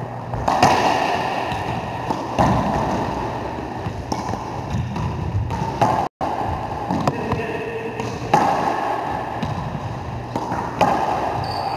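Racquetball rally: the ball cracks sharply off racquets and the court walls every second or two, each hit ringing in the enclosed court.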